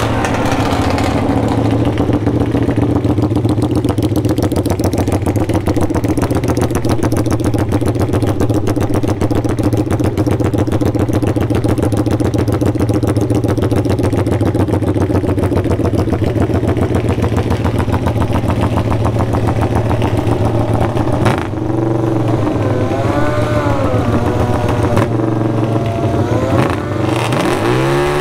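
A loud engine running steadily at idle for most of the time, then revved up and down in several throttle blips over the last few seconds.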